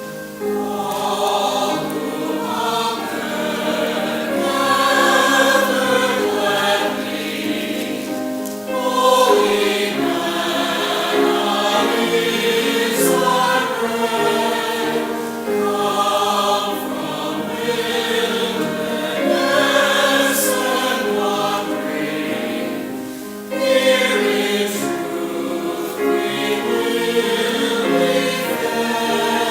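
Church choir singing a hymn or anthem with sustained, phrased lines, with short pauses for breath about eight seconds in and again near the end.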